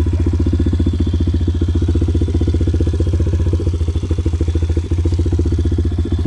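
Motorcycle engine running steadily with an even, rapid pulsing beat and no revving.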